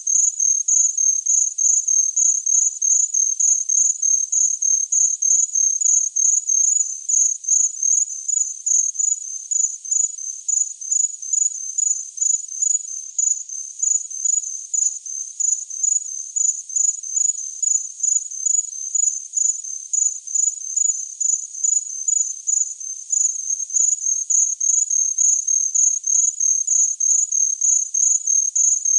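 A cricket chirping continuously in a steady, evenly spaced rhythm of short, high-pitched chirps.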